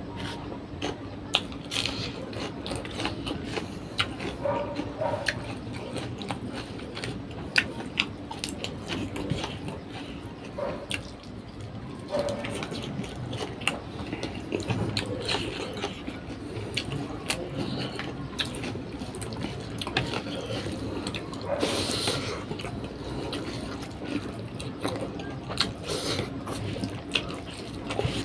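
A person eating close to the microphone: wet chewing and mouth sounds with many small sharp clicks, and one short louder noisy burst about three quarters of the way in.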